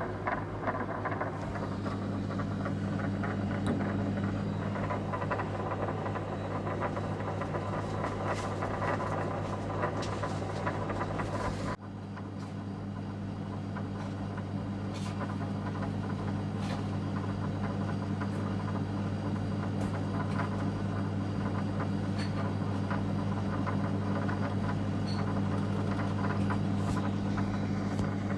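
Steady low mechanical drone of a running engine or machine, with a few faint sharp knocks. The sound dips abruptly about twelve seconds in, then carries on.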